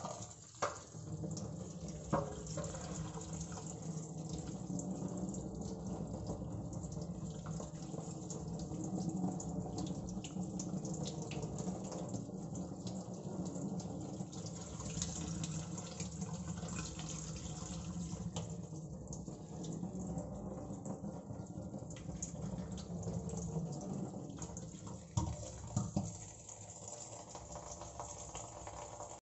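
Cold water running from a kitchen tap in a steady stream onto just-boiled noodles in a stainless steel colander in the sink, rinsing them. A few knocks, the loudest two near the end.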